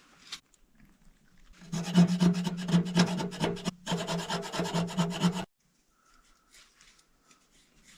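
Rapid rasping, scraping strokes on wood, starting about two seconds in, pausing briefly midway and cutting off abruptly after about four seconds.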